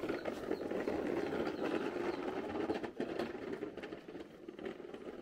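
A toddler's plastic push toy scraping and rattling as it is shoved across dry dirt and grit, a continuous rough rattle that dips briefly about three seconds in.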